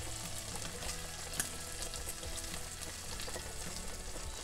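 Silicone-coated wire whisk beating eggs and grated pecorino in a stainless steel bowl: a steady run of quick scraping and ticking against the bowl, with a sharper click about a second and a half in.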